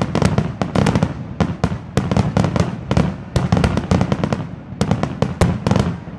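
Aerial fireworks exploding in a rapid barrage: many sharp bangs a second, overlapping, over a continuous low rumble.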